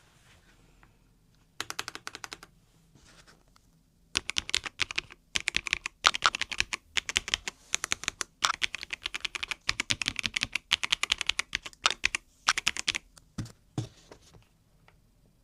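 Typing on a Logitech K98M gasket-mounted mechanical keyboard with Marble switches: a short burst of keystrokes, then about nine seconds of fast, continuous typing, with two deeper key strikes near the end.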